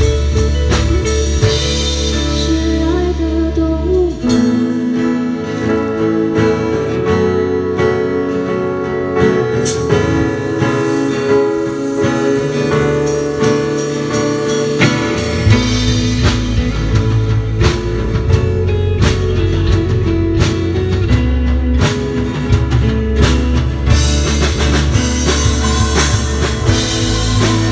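Live rock band playing, with electric guitar, drum kit and singing. The deep bass drops out about four seconds in and comes back about eleven seconds later.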